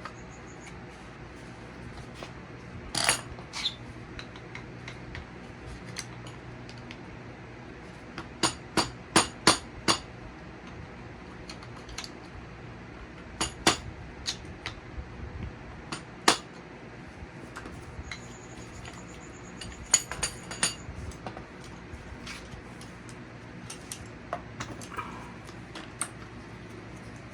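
Hand tools knocking and clinking on metal suspension parts: scattered sharp metallic taps, with a quick run of about five strikes about a third of the way in and single loud strikes later.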